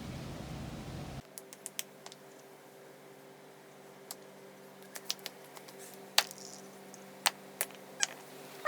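Macadamia nut shell being cracked and pried open: a dozen or so sharp, irregular clicks and cracks. A steady rushing noise cuts off about a second in.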